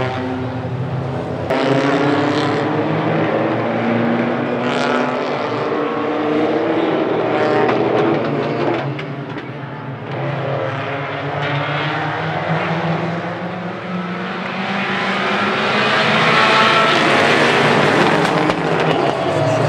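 A pack of compact tuner race cars running hard together, engines revving, their pitches rising and falling as the cars go by. The sound dips about halfway through, then swells to its loudest near the end as the pack comes past.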